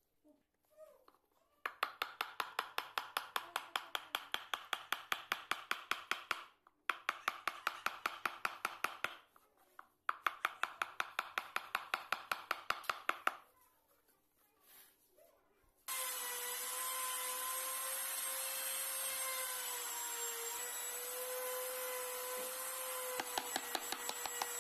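Hand wood carving: a carving chisel cutting into a wooden panel in quick, even strokes, about five a second, in three runs with short pauses. About two-thirds through, a steady hum with a slight whine takes over, and faint strokes come back near the end.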